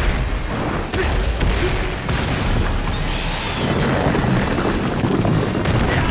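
Battle sound effects for a giant-monster fight: a dense, continuous rumble of booms and explosions, heavy in the low end, with several fresh blasts along the way.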